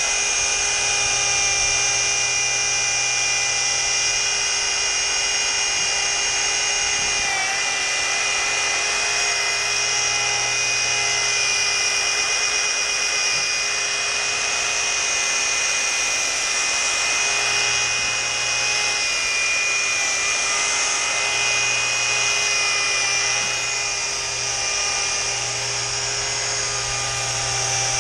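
Handheld electric rotary polisher with a foam pad, running steadily against window glass as it polishes off stains. Its motor whine dips briefly in pitch about a quarter of the way through and wavers a little later on.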